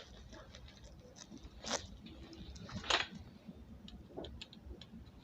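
Faint handling noises of small electronic parts and tools on a workbench: a couple of short clicks and scrapes, the louder two about two and three seconds in, as an amplifier IC is fitted to its heat sink.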